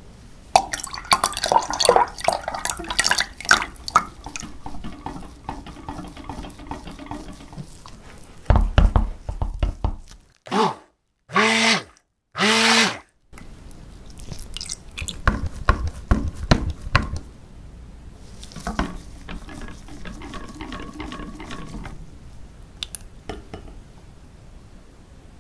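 Liquid sloshing and splashing in a glass jug, with a stick blender run in three short pulses whose motor whine rises and falls, mixing oils and lye solution into soap batter.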